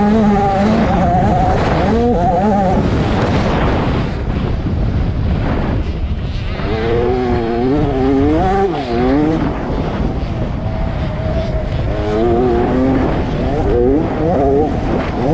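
Engine of a 65cc two-stroke motocross bike revving hard, its pitch rising and falling again and again as the rider accelerates, shifts and backs off along the dirt track. It is heard close up from a camera mounted on the bike.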